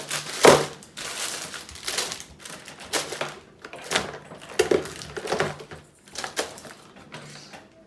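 Small plastic fidget toys clattering and clicking as they are picked up and dropped into a bucket, in irregular knocks with the loudest about half a second in.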